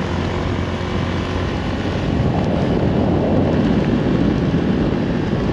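Honda CB150 motorbike engine running at a steady speed while riding, with heavy wind rush over the helmet-mounted microphone that swells a little midway.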